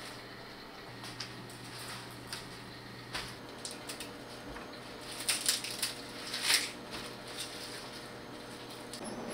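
Fresh spinach being picked over and cut with a knife on a wooden cutting board: light rustling and snapping of crisp leaves and stems, with a cluster of louder crunches about five to seven seconds in, over a faint steady low hum.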